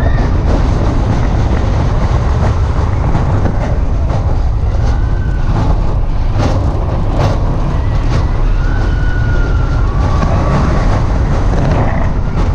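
Steel roller coaster train running along its track at speed: steady wind rush buffeting the microphone over the rumble of the wheels. A few short squeals come through, and two sharp clatters about six and a half and seven seconds in.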